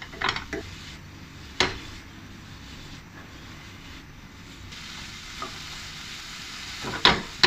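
Asparagus and garlic sizzling in a hot nonstick pan as a wooden spatula stirs and flips them, with a few sharp knocks of the spatula against the pan, the loudest near the end.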